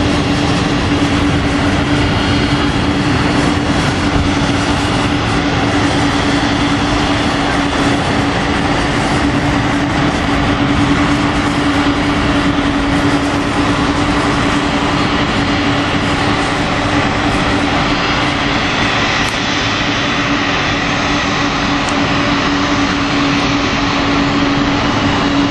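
Boeing 747 freighter's jet engines running at taxi power: a loud, even rush with a steady low hum that holds unchanged throughout.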